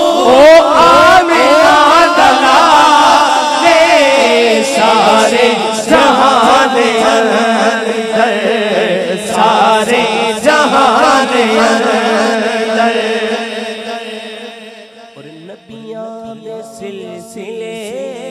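Male voice singing a Punjabi naat, a long wordless passage of wavering, drawn-out melodic lines. It grows clearly quieter about fourteen seconds in.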